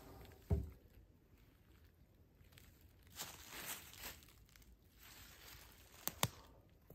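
A small birch log set down with a low thump about half a second in, then footsteps rustling through dry fallen leaves, and two sharp cracks close together near the end.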